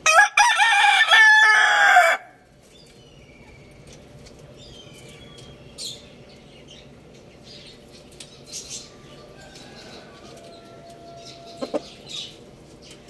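Rooster crowing once: a loud crow about two seconds long, its pitch dropping at the end.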